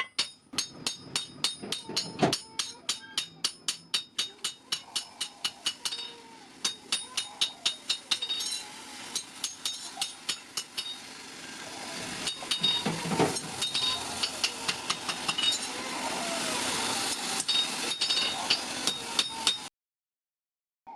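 Steel being forged with a hand hammer on an anvil: fast, evenly spaced blows, about three to four a second, each ringing brightly. A steady hiss builds in beneath the blows over the second half, and the sound cuts off suddenly near the end.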